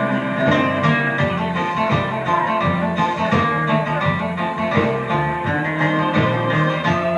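Live band playing an instrumental passage of a folk ballad, with acoustic guitar to the fore.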